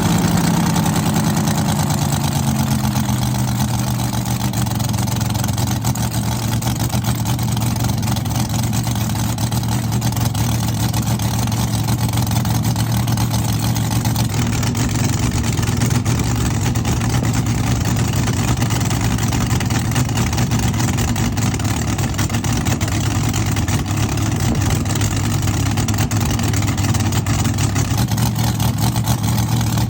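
A drag car's engine running loudly: its revs fall over the first few seconds after a throttle blip, then it settles into a steady idle.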